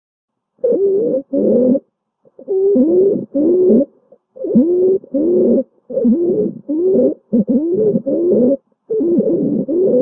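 Stridor: a patient's harsh, musical breath noises with sliding pitch, coming in pairs about every second and a half. It is the sign of a narrowed or blocked upper airway.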